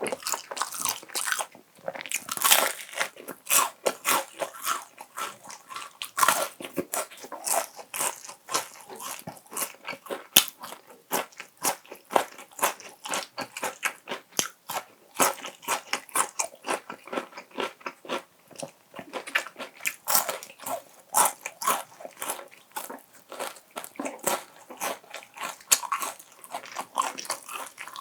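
Crispy fried chicken being bitten and chewed, with many sharp crunches in quick, irregular succession.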